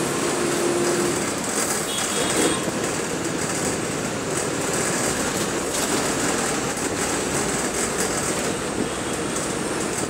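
A moving city bus heard from inside: its engine running under steady road and wind noise.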